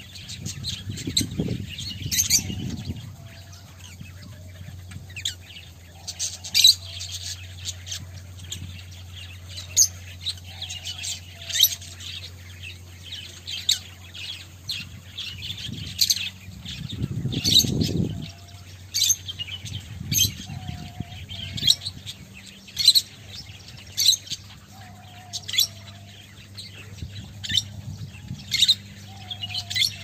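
A flock of small parrots in an aviary, peach-faced lovebirds and parakeets, giving short, shrill chirps every second or so. Underneath is a steady low hum, with two spells of low rumble, one near the start and one about two-thirds of the way through.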